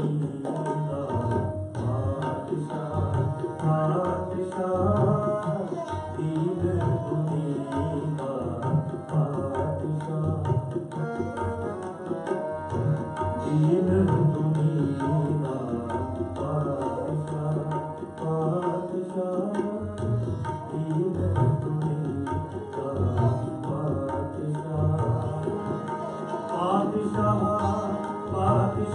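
Sikh shabad kirtan music: tabla drums keeping a steady rhythm under harmonium, with the tabla strokes prominent.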